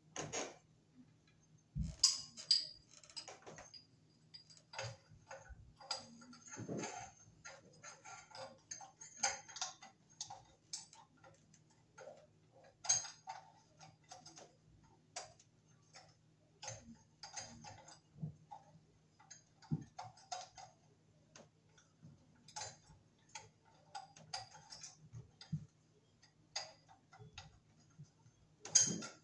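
Irregular small clicks and clinks of glass light shades being handled and fitted onto a ceiling fan's light kit, with a faint steady hum underneath.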